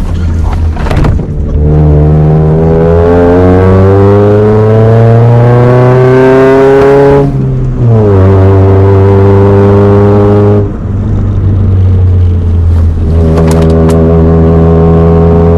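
Honda H23 2.3-litre four-cylinder engine in a Honda Prelude accelerating under load: its pitch climbs for about five seconds, drops sharply at a gear change, then holds steady. It lifts off briefly near the eleven-second mark, then settles back into steady running.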